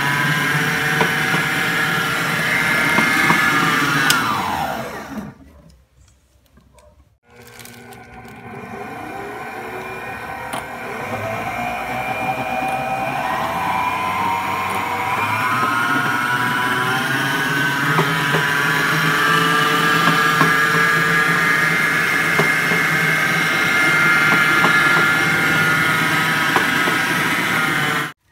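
Electric stand mixer's motor running with a high whine. About five seconds in it winds down and stops. It starts again about two seconds later, its pitch climbing as it speeds up, then runs steadily until it cuts off abruptly at the end.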